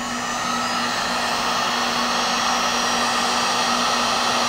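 Handheld hot-air heat gun blowing, its fan noise building up over the first second and then holding steady with a faint whine, as it shrinks heat-shrink tubing.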